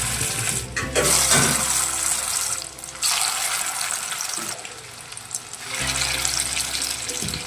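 Chana dal fritters sizzling in shallow hot mustard oil in a kadai. The sizzle comes in bouts, easing off for a moment about three seconds in and again near five seconds, then picking up.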